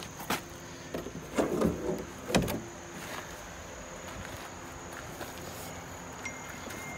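A few knocks and a short scrape as a black car body-kit panel (side skirt or over-fender) is handled and lifted; the loudest is a sharp knock about two and a half seconds in. A steady high insect drone runs underneath.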